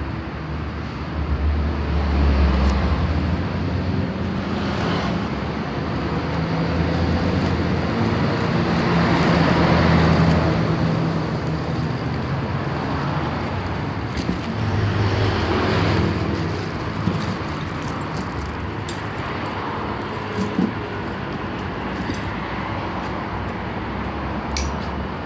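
Steady motor-vehicle and traffic noise, with low engine rumble that swells and fades a few times and a couple of sharp clicks near the end.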